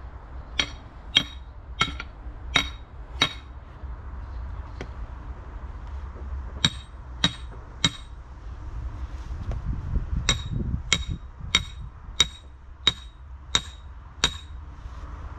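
Sledgehammer driving metal stakes into the ground, each blow a sharp ringing clang of metal on metal. Five blows, a pause, three more, another pause, then seven, about one every two-thirds of a second.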